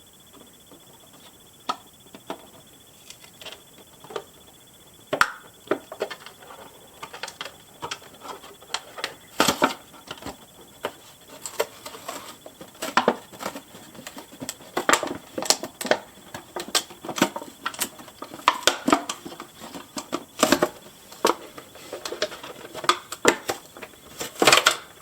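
Irregular clicks, taps and short rustles of a Barbie doll being taken out of its cardboard box and plastic packaging. Sparse at first, then busier from about five seconds in.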